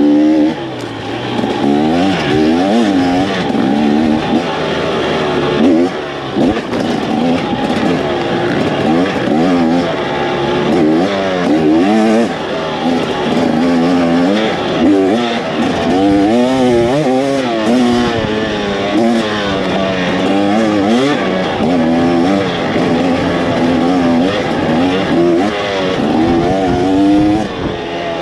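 Two-stroke dirt bike engine, fitted with a 340-gram flywheel weight, running under way and revving up and down over and over as the throttle is opened and closed.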